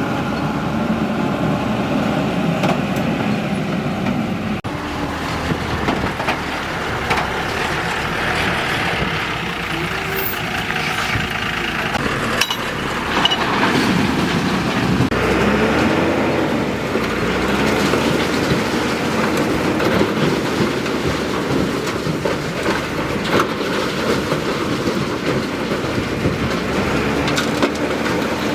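JCB 3DX backhoe loader's diesel engine working steadily, its pitch rising and falling a few times as it revs under load, with scattered clanks and knocks throughout.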